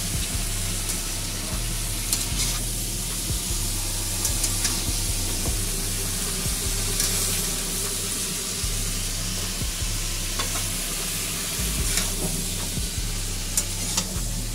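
Chopped vegetables and prawns sizzling in hot oil in a metal kadai while a metal spatula stirs them, with a steady frying hiss and now and then a click of the spatula against the pan.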